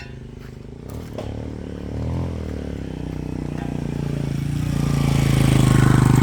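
Chainsaw running, its engine note growing steadily louder over the few seconds and loudest near the end.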